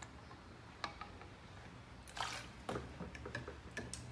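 Alcohol being poured from a plastic bottle into a small glass refill bottle, a faint trickle, then a few light clicks and taps as the bottles are handled and set down near the end.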